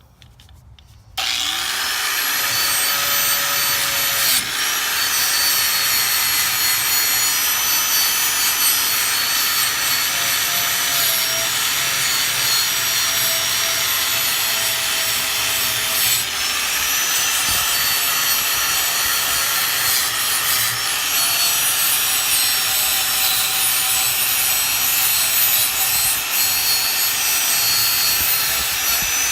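Angle grinder switched on about a second in and grinding rust off an old steel sickle blade; a steady loud whine that dips in pitch now and then as the disc is pressed into the metal.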